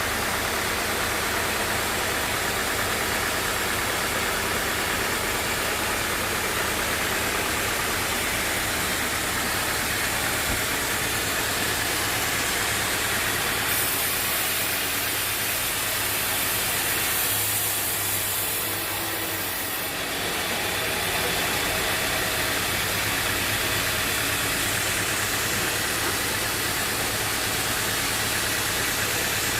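A sawmill's engine running steadily throughout. A higher hiss joins in for several seconds about halfway through.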